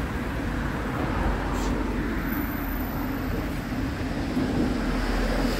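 Steady road-traffic noise, a continuous low rumble of passing vehicles, with a thin high tone for about a second near the middle.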